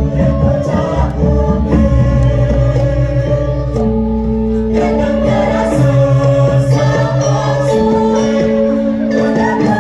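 Balinese gong kebyar gamelan: bronze metallophones struck and ringing in held notes that change every second or two, over a low gong, with a choir singing along in a sandyagita piece.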